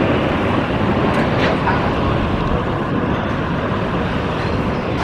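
Steady jet engine noise of a Boeing 787-9 Dreamliner on landing approach, mixed with strong wind buffeting the microphone.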